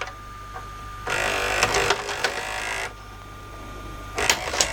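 LG VCR/DVD combo's tape loading mechanism running an eject cycle: a click, then the loading motor and gears whirring for about two seconds, then sharp clicks and clunks near the end as the cassette comes out. The freshly repaired mechanism ejects properly.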